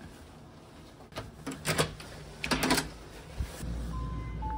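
A few clicks and knocks, then a steady low hum begins and an elevator chimes its arrival with two short soft tones, the second a little lower.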